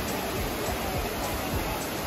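Trevi Fountain's water cascading over its stone rocks into the basin: a steady rushing.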